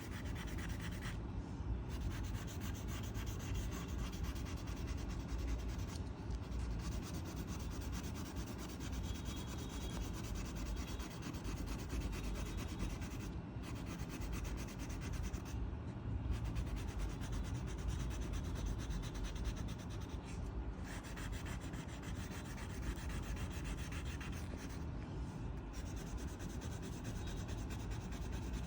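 A coloring tool rubbing on paper in continuous scratchy back-and-forth strokes as an area is filled in, broken by a few brief pauses where the tip is lifted.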